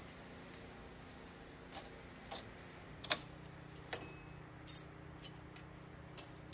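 Faint scattered clicks and taps as a razor knife is worked against the engine's ribbed accessory drive belt to cut it off, with one short rasp about two-thirds of the way through. A faint steady hum lies underneath.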